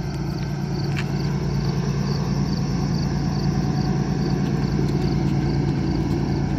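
Approaching CN diesel locomotive, its engine a steady low drone that grows slightly louder, with crickets chirping.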